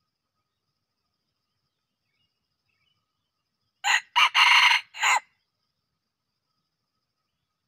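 Red junglefowl rooster crowing once, about four seconds in: a short, clipped crow broken into four quick parts, lasting about a second and a half.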